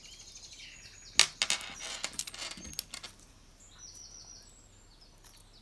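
Sheet of glue dots on its plastic backing crackling and rustling as it is handled, with a sharp click about a second in. A few faint high chirps follow about four seconds in.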